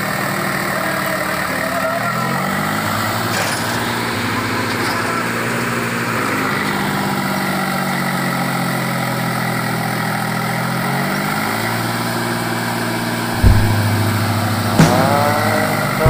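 Swaraj 735 FE tractor's three-cylinder diesel engine running under load as it strains to pull a trailer full of sand out of soft ground, its revs rising and falling a few times. About 13 seconds in the sound suddenly gets much louder.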